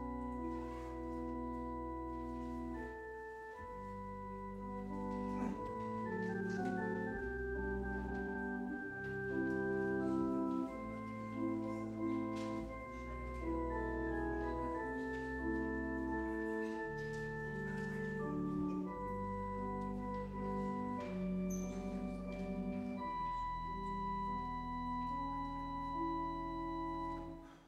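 Church organ playing slow, sustained chords over a low bass line, the chords changing every second or so.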